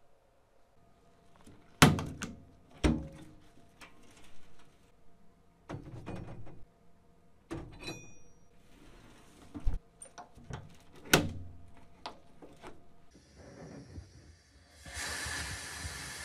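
Metal parts being handled on a work surface: a series of sharp clacks and knocks with fainter handling noise between them. Near the end a steady hiss starts.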